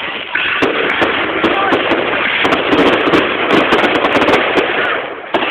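Fireworks crackling densely: a rapid, continuous stream of sharp pops and crackles. It dips briefly near the end, then starts again with a fresh sharp burst.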